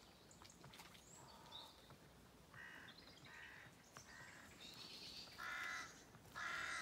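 Crows cawing in a series of about six harsh calls, the last two louder, with a few faint chirps of small birds.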